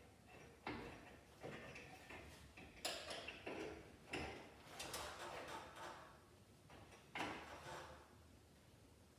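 Faint clicks, knocks and short scrapes of small hard parts being handled and fitted, one every second or so with a gap near the end.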